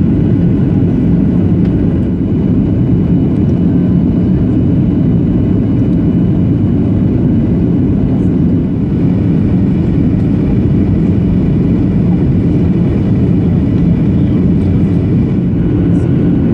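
Steady cabin noise inside a Boeing 737-800 during descent: the rush of airflow and the low hum of the CFM56 turbofans, heard from a window seat beside the wing.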